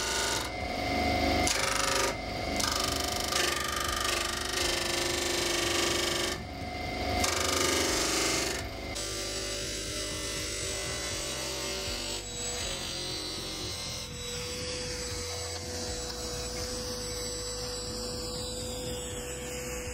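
Homemade disc sander driven by an electric motor: a small wood block is ground against the spinning abrasive disc, a loud rasping broken by short gaps as the block is pressed and eased off. About nine seconds in the sanding stops and the disc runs free, more quietly, with a faint whine that slowly falls in pitch.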